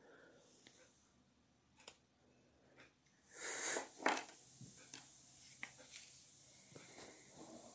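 Faint room sounds: a few soft clicks and a short breathy rustle about three and a half seconds in.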